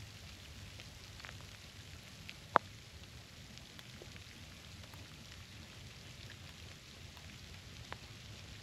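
Light rain pattering, a faint steady hiss with scattered small ticks of drops and one sharp, louder tick about two and a half seconds in.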